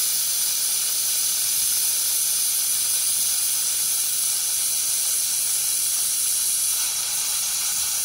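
Pressure cooker venting steam through its whistle in a loud, steady hiss while the chicken curry cooks under pressure; this is one of the whistles counted to time the cooking.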